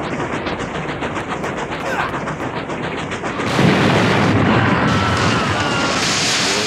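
Battle sound effects: a rapid run of sharp cracks like gunfire, then about halfway through a sudden loud explosion that keeps rumbling to the end.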